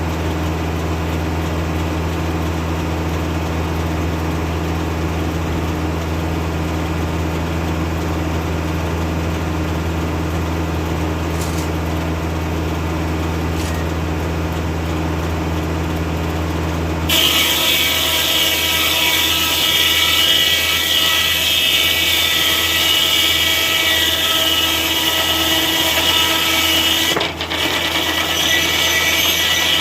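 Foley-Belsaw circular sawmill running off a Kubota tractor, sawing an oak log. A steady low hum for the first half, then the sound changes abruptly to a louder, higher-pitched sawing noise, with a brief drop just before the end.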